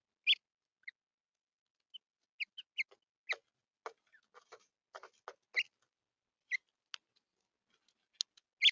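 Small songbirds at a seed feeder: a dozen or so short high chirps and sharp clicks, irregularly spaced. The clicks are typical of beaks pecking at seed and feet on the feeder.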